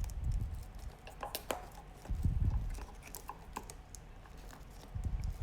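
Faint clicks and scratches of a plastic spudger picking at a stubborn adhesive sticker on a laptop screen cable, with three dull handling bumps.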